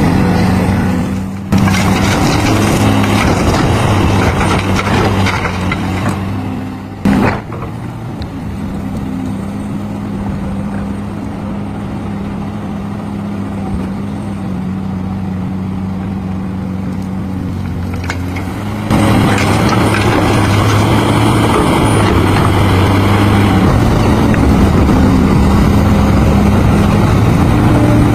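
Caterpillar 245 excavator's diesel engine running steadily, a low drone that drops in level for about ten seconds after a sudden break near a quarter of the way in, then comes back up louder about two-thirds of the way through.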